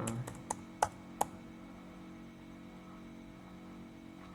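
A few computer keyboard keystrokes in the first second and a half, then a faint steady hum.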